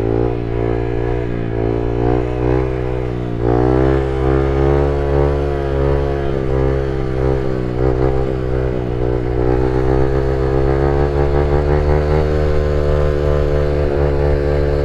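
Honda Grom's single-cylinder four-stroke engine running under way at low speed, picking up revs about three and a half seconds in and then holding a steady pitch.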